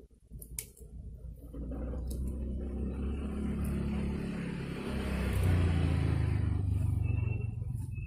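A motor vehicle passing: a low engine rumble grows over several seconds, is loudest a little past the middle, then fades near the end.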